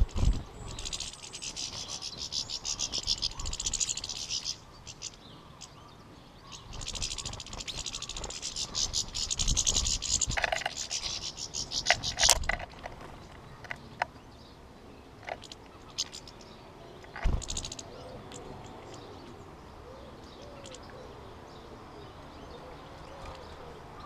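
European goldfinches twittering in fast, high, tinkling runs, two long bursts in the first half. Scattered sharp knocks and low thumps in between, and a quieter stretch in the second half.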